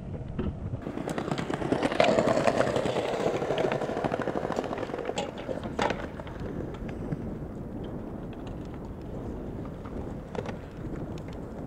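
Outdoor ambience: a steady rushing noise that swells about two seconds in and slowly eases off, with a few sharp clicks in between.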